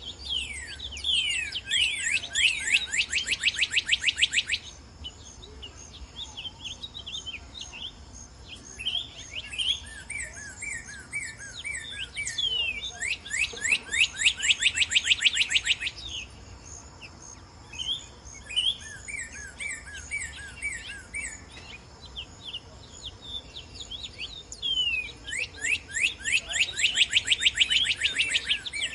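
Northern cardinal singing three loud phrases, each a rapid run of downward-slurred whistles, roughly twelve seconds apart. Other birds chirp softly between the phrases over a steady high insect drone.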